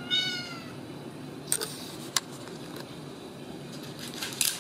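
Ragdoll kitten giving one short, high meow that falls slightly in pitch, followed by a few scattered clicks and scuffles as the kittens play.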